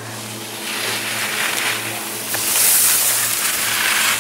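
Skis scraping and hissing on hard-packed snow as a giant slalom racer carves turns close by. The sound comes in two swells, the second louder.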